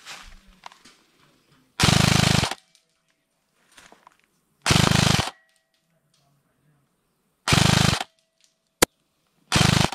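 An airsoft rifle firing four short full-auto bursts of rapid shots, close and loud. There is a single sharp snap shortly before the last burst.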